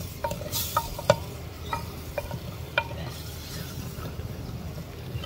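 Wooden spoon stirring an onion, tomato and spice masala in a clay handi, knocking irregularly against the pot's sides, over a low sizzle of the masala frying in ghee.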